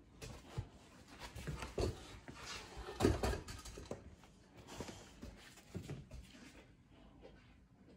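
Dogs moving about on a hard floor: scattered knocks and scuffs of paws and bodies, the loudest thump about three seconds in, dying down near the end.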